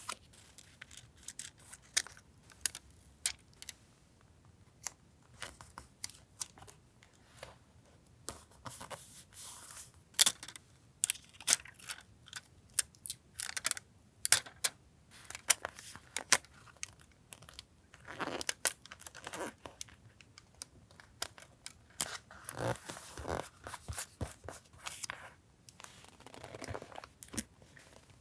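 Paper collage materials being handled: many short taps and clicks, with a few longer stretches of paper rustling and tearing.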